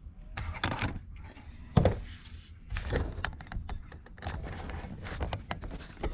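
Hands handling parts and lines in a boat's rigging compartment: scattered clicks, knocks and rustles, with one louder thunk just under two seconds in.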